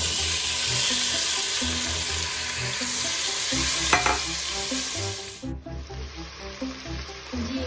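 Marinated chicken pieces sizzling in hot oil in a nonstick pan on high flame while being stirred with a silicone spatula, with one sharp tap of the spatula about four seconds in. The sizzle turns quieter and duller about five and a half seconds in.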